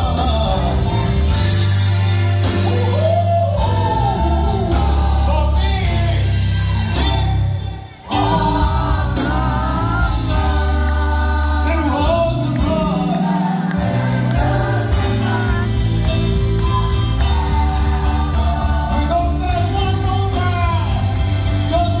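Gospel choir singing with instrumental accompaniment and heavy bass. The sound drops out briefly about eight seconds in.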